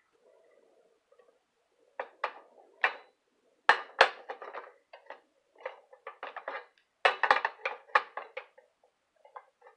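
Hot sandwich maker knocking and scraping against a portable stove's metal grate as it is handled and shifted on the burner: a string of sharp clanks, loudest about four seconds in and again about seven seconds in.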